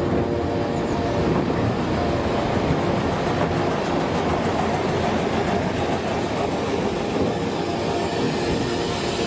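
Small heritage railway train running, a steady noise of engine and wheels.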